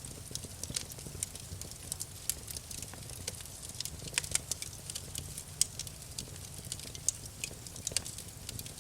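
Wood campfire crackling, with many irregular sharp pops and snaps over a steady low rumble of the flames.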